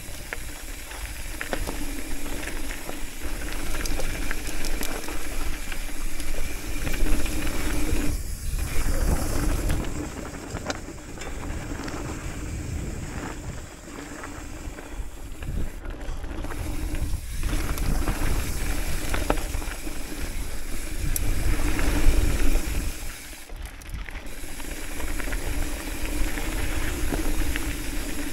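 Hardtail mountain bike descending a dirt and gravel trail: a steady rush of wind on the microphone and tyres rolling over the ground, with the bike rattling and clicking over bumps. The rush swells and eases with speed, dropping twice, around the middle and a few seconds from the end.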